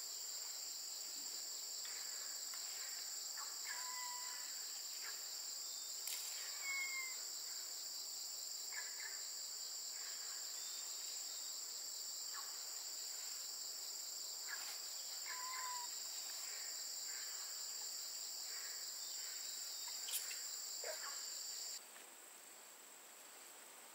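Steady, high-pitched insect chorus that cuts off abruptly about 22 seconds in. A few short bird chirps and occasional sharp clicks and rustles sound over it.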